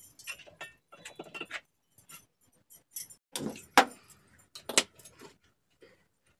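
Metal cookware and utensils clinking and clattering as they are handled, in scattered short knocks with a few sharper clanks around the middle.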